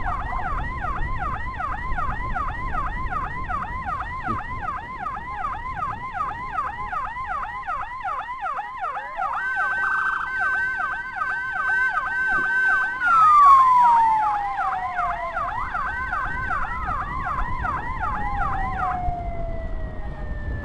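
Electronic escort siren sounding a fast yelp, its pitch sweeping up and down several times a second, to clear the way for an ambulance. Partway through, a second siren tone holds steady and then slides down in pitch, twice, as it winds down. The yelp stops near the end.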